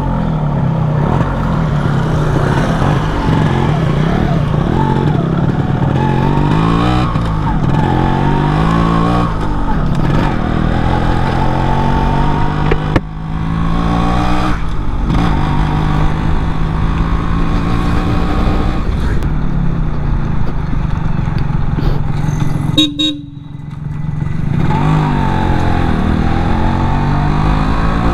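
Yamaha RX135 single-cylinder two-stroke motorcycle engine under way, its revs climbing and falling again and again as the rider works the throttle and gears, with a sharp drop in revs twice. A short horn toot comes about three-quarters of the way through.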